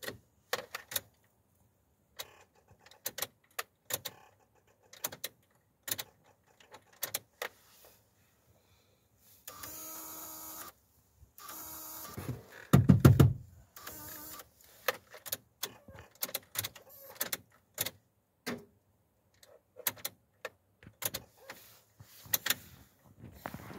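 Repeated sharp clicks of a truck's steering-column stalk switches being worked. Midway there are two short electric whirs about a second and a half long, the second ending in a loud low thump.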